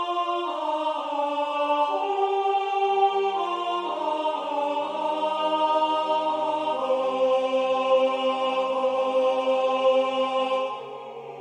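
Four-part choral music in slow, sustained notes. The upper voices hold steady lines, a lower part comes in about three seconds in and a still lower one about two seconds later, and the sound thins briefly near the end.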